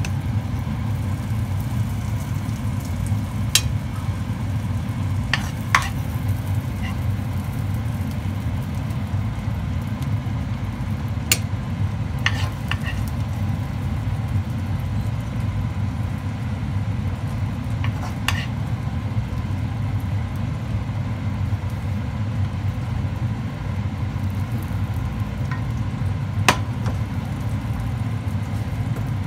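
Steady low machine hum, with a few short, sharp clinks scattered through it.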